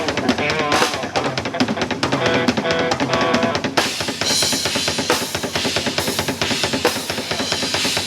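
Live band music led by a drum kit keeping a steady beat on bass drum and snare, with held instrument notes over it. About four seconds in, the cymbals come in louder and brighter.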